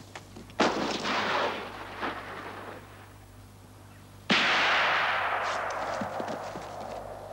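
Two rifle shots, about half a second in and about four seconds in, each cracking out suddenly and then ringing away as a long echo over a couple of seconds.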